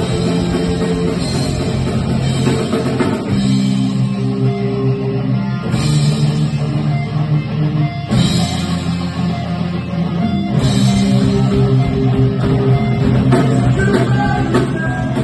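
Punk band playing live: distorted electric guitar, bass guitar and drum kit, the chords changing every few seconds.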